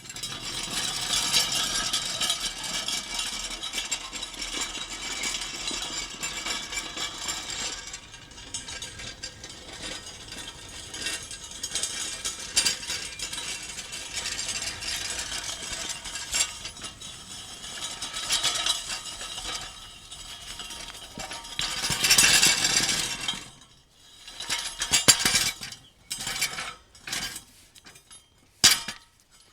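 Metal pieces shuffling against each other: a dense, continuous rattle of small clicks and clinks that swells louder about 22 seconds in, then breaks up into separate clanks with short gaps between them near the end.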